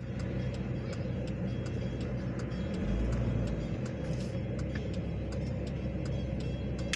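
Railroad crossing warning bell striking steadily, a few times a second, over a low rumble, heard from inside a stopped car.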